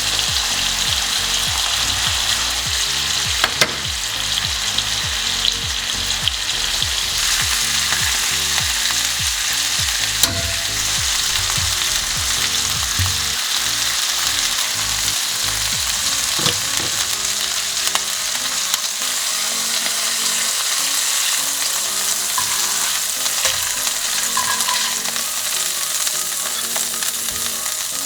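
Seasoned chicken pieces searing in avocado oil and butter in a pan over medium-high heat: a steady sizzle with a few sharp clicks.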